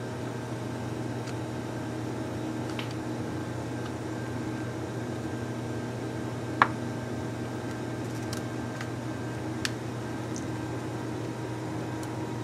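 Small metal screwdriver prying at the plastic front ring of a GoPro HERO4 Session camera: a few faint ticks and scrapes, with one sharp click about six and a half seconds in. A steady machine hum runs underneath.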